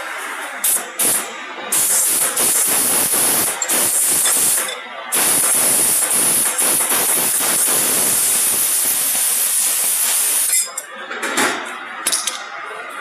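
Compressed air hissing in two long blasts, the first about three seconds and the second about five, with a brief break between. A few short puffs follow near the end.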